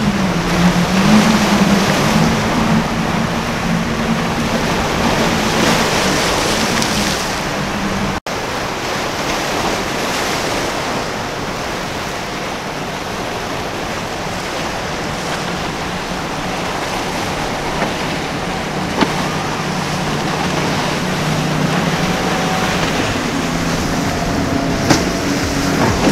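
Outboard motors of a center-console fishing boat running hard through rough surf, engine pitch rising and falling with the throttle, over the wash of breaking waves. The sound drops out for an instant about eight seconds in, then another boat's outboards run steadily, rising in pitch near the end.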